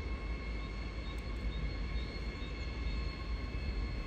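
Siemens Desiro HC electric multiple-unit train running slowly towards the listener over the points. It makes a steady low rumble with a thin, steady high whine.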